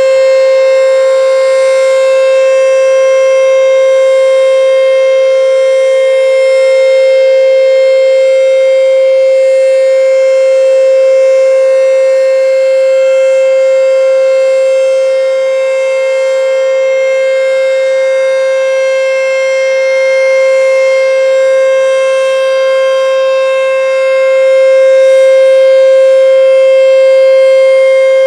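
ACA Screamer S-5 outdoor warning siren sounding at full speed, very loud, holding one steady high tone with no rise or fall in pitch. Its loudness dips a little about halfway through and swells again near the end.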